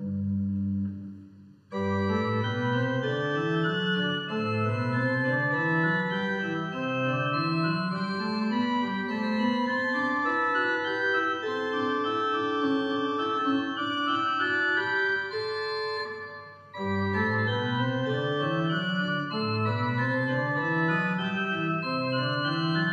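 Church organ playing the postlude: held chords over a bass line that climbs in repeated rising runs. The music breaks off briefly twice, once near the start and once about two-thirds of the way through, before going on.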